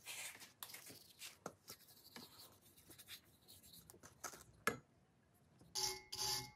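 Short, irregular scraping and rubbing strokes of hand work on the corroded knife, such as sanding or scraping rust. Near the end a loud, evenly pulsing electronic tone starts, repeating about twice a second.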